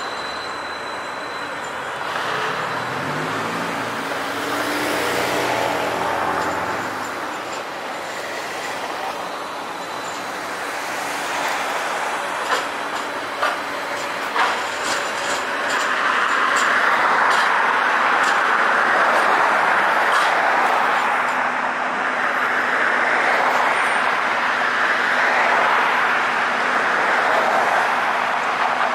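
Battery-electric Brookville Liberty streetcar rolling past at low speed amid street traffic, with a rising motor note a few seconds in and a few sharp clicks near the middle. Passing cars make the second half louder and steady.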